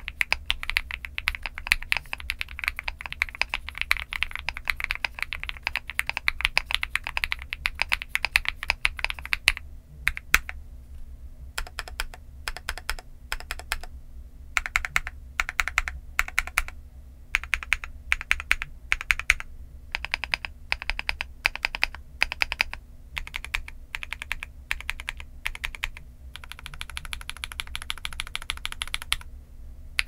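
Typing on an iNKC65 aluminium-cased, gasket-mount 65% mechanical keyboard with Akko × MMD Starfish Princess switches and Cherry-profile dye-sub PBT keycaps. Fast, continuous typing for about ten seconds, then single keystrokes and short runs with gaps between them, then steadier typing again near the end.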